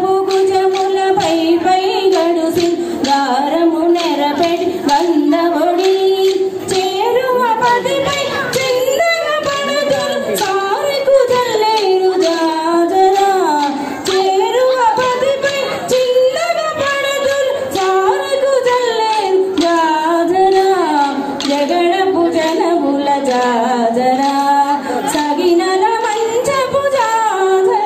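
Women singing a Telugu folk song, a continuous ornamented melody over a steady percussive beat.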